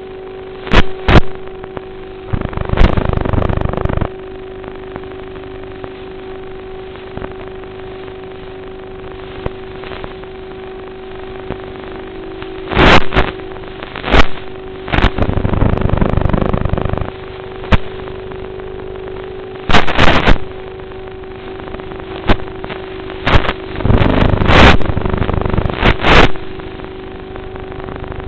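Twin electric motors of a model airplane running with a steady whine, picked up by a small onboard camera microphone. The whine is broken by sharp cracks and several loud bursts of rushing noise lasting a second or two each.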